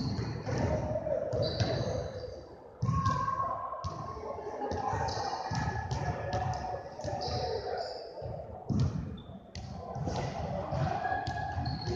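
Basketballs bouncing on a hardwood gym floor, the repeated thuds echoing in the large hall, with short high squeaks and indistinct voices in the background.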